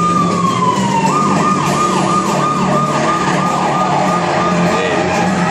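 Emergency-vehicle siren: a long wail that falls away about a second in, then switches to a fast yelp, about three sweeps a second, which dies out near the end. A steady low hum runs underneath.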